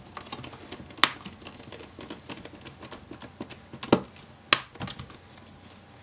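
Small Phillips precision screwdriver driving screws into a laptop's aluminium base panel: a run of small clicks and ticks, with a few sharper clicks about a second in and around four seconds in.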